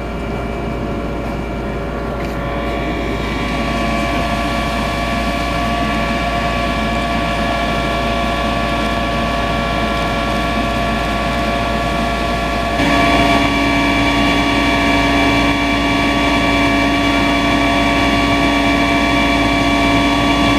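Engine running at a steady speed: a continuous drone of several held tones over a low rumble. About two-thirds of the way through, a strong lower tone joins and it gets slightly louder.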